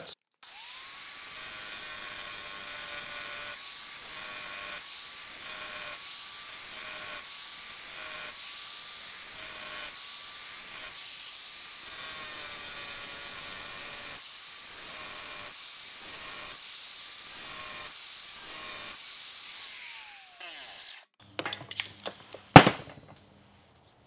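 A 4-1/2-inch angle grinder with a diamond blade cutting into the back of a ceramic tile. The motor's pitch dips and recovers about once a second as the blade bites into the tile. Near the end the grinder winds down and stops, followed by a few knocks and one sharp clack.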